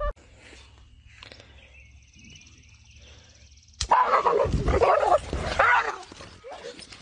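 Dogs barking and growling in a loud, chaotic outburst lasting about two seconds, starting suddenly about four seconds in after a quiet stretch.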